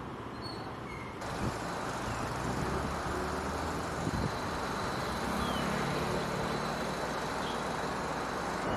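Street traffic noise: a steady hum and rumble of passing vehicles and motor scooters. It gets louder about a second in, with a couple of short knocks.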